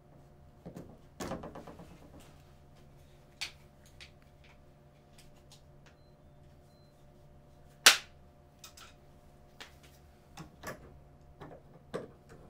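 Scattered sharp clicks and knocks from a plumbing hand tool and plastic water pipe and fittings being handled overhead, with a short rattle about a second in and one loud snap near the middle. A steady low hum runs underneath.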